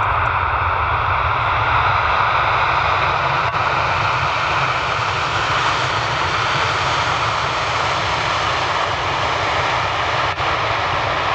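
Jet engines of a four-engined Airbus A340 airliner during its landing roll just after touchdown, a steady loud rush of engine and air noise.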